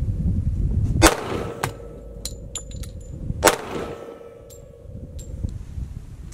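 Two .45 ACP pistol shots about two and a half seconds apart, each followed by a ringing echo, with light metallic tinkles between them as the spent brass lands.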